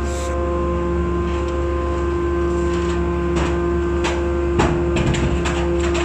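Hydraulic scrap metal baler running with a steady mechanical hum. From about three seconds in, irregular metal clanks and knocks join the hum.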